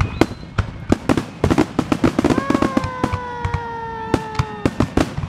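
Aerial fireworks shells bursting in quick succession: many sharp cracks and bangs, thickest from about a second in. A long tone held for about two seconds from the middle on, slowly falling in pitch.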